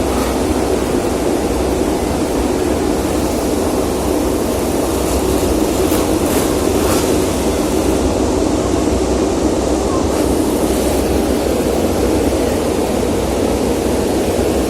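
Many MotoGP racing motorcycles' engines running together, blending into a steady, unbroken wall of engine noise.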